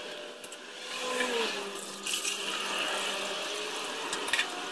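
Automatic transmission fluid running and dripping from the exposed valve body and filter of a 5L40E transmission as its oil pan is taken off, a steady trickle with a few light knocks of the pan.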